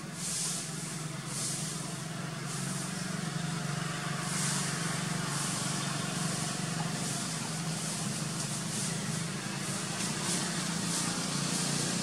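Outdoor ambience: a steady low hum under a high hiss that swells and fades every second or so.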